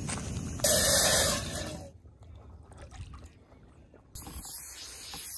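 Small waves washing over a pebble and rock shore, water trickling and dripping between the stones, with a louder rush of water about a second in and again near the end.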